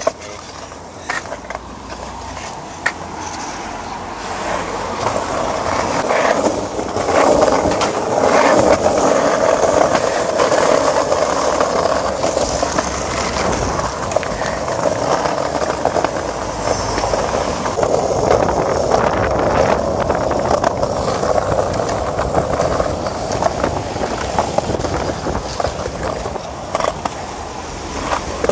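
Skateboard wheels rolling over a concrete pavement: a continuous rumble that swells over the first several seconds and then stays loud, with occasional sharp clicks, mostly early on.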